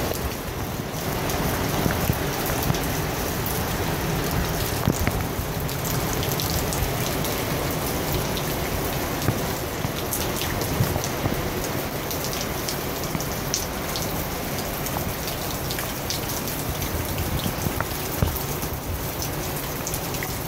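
Heavy wind-driven rain in a tropical-storm gust: a steady hiss of rain with many sharp ticks of drops striking close by, and gusting wind rumbling on the microphone.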